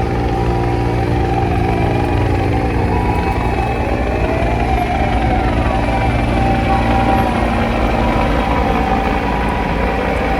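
Fire engine sirens wailing with a slow rising and falling pitch, at times two sirens overlapping out of step. Beneath them is the steady running of heavy truck engines.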